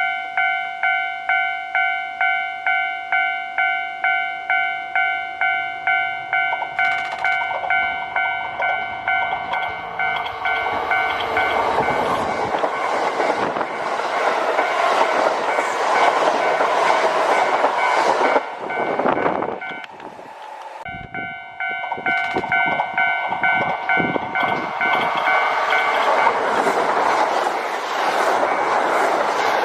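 Japanese level-crossing warning bell ringing in a steady, evenly pulsing chime, about two strikes a second. A Kintetsu electric train then passes over the crossing, its loud rumble and wheel clatter swamping the bell. After a sudden break the bell is heard again as another train passes.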